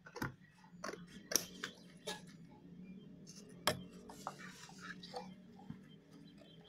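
Scissors cutting corrugated cardboard: a run of sharp snips in the first couple of seconds and a louder snap a little later. The cardboard sheet then rustles as it is lifted and moved.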